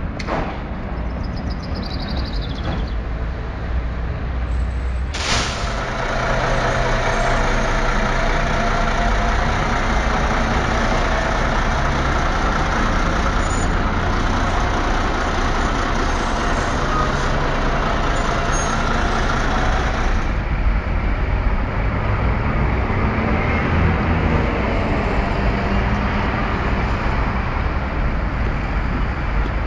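Street traffic of city buses and trams running, louder and busier from about five seconds in. In the later part a city bus engine runs close by.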